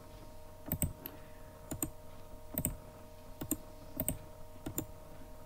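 Computer mouse clicking about once a second, some clicks in quick pairs, as links are right-clicked and opened in new tabs from the browser's context menu. A faint steady hum runs underneath.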